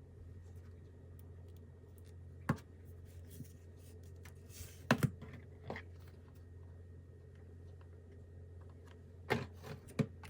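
Kitchen items being handled during food prep: scattered light taps and clicks, a close double tap about halfway through and two more near the end, over a low steady hum.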